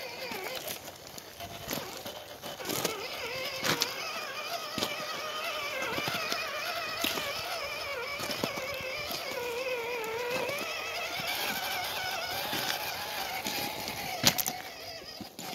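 Electric motor and gear drive of an Axial SCX10 II Trailfinder 2 RC crawler whining, its pitch sliding up and down with the throttle, with scattered clicks and knocks of the tyres and chassis on loose rocks.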